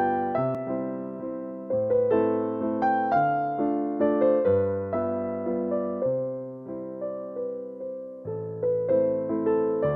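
Background piano music: a melody of struck notes that each fade away, over lower bass notes.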